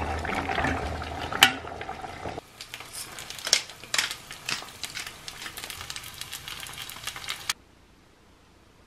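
A pot of stew bubbling while it is stirred with a ladle, with one sharp knock about a second and a half in. Then an egg frying in oil in a pan, crackling and popping steadily until the sound cuts off suddenly near the end.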